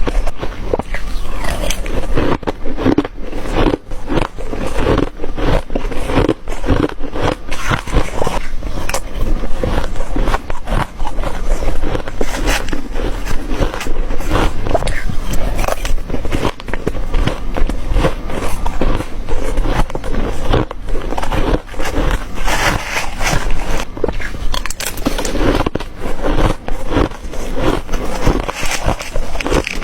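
Ice being bitten into and crunched, sharp cracking crunches coming several times a second, one bite after another.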